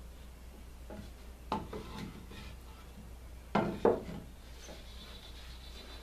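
Pine boards of a small birdhouse box being handled on a plywood workbench: a few light wooden knocks and scrapes, two of them close together about halfway through.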